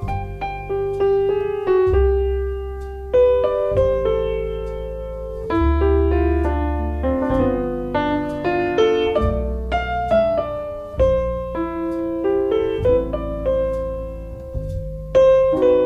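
Background music: a piano playing a flowing melody of single notes over a low bass note that comes back about every two seconds.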